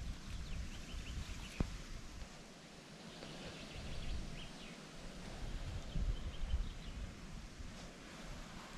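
Outdoor ambience by a pond: faint short bird chirps several times over a steady noise bed, with a few low thumps and one sharp click about one and a half seconds in.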